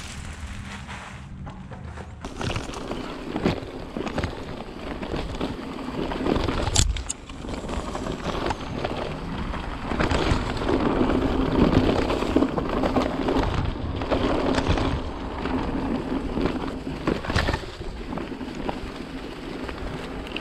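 Mountain bike riding a forest singletrack: knobby tyres rolling over dry leaves and dirt, with a steady clatter of small knocks and rattles from the bike and wind on the microphone. It grows louder about halfway through as the bike picks up speed.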